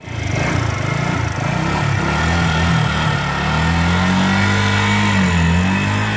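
Yamaha YZF-R125's 125 cc single-cylinder four-stroke engine running and being revved lightly, its note rising about three and a half seconds in, dipping briefly and climbing again as the bike moves off.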